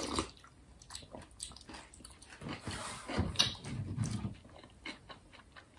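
Eating sounds: spoons clicking against bowls and okroshka cold soup being slurped off spoons, with chewing. A denser run of slurping and chewing comes about two and a half to four seconds in.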